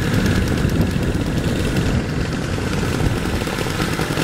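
Several vintage snowmobiles' two-stroke engines running together at idle, a steady, loud sound.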